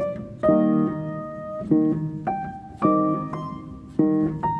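Instrumental background music: gentle chords of struck or plucked notes, a new chord about every half second to second, each ringing and fading.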